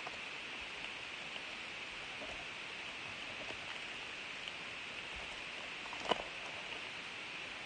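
Foil wrapper of a Topps Chrome card pack crinkling faintly as it is torn open by hand, over a steady hiss, with one sharper crackle about six seconds in.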